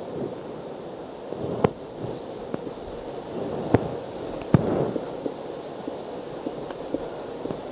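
Marker pen drawing on a whiteboard: scratchy strokes with a few sharp taps as the tip strikes the board.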